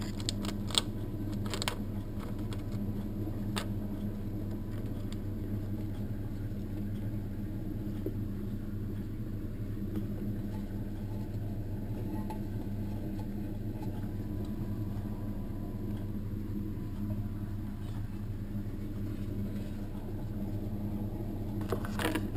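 Steady low electrical-sounding hum, with a few faint clicks and taps in the first few seconds and a short rustle near the end as the camera is moved.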